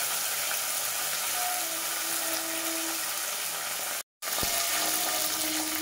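Whole spices and herbs sizzling in hot oil in an aluminium pot, a steady hiss. The sound drops out for a moment a little after four seconds in.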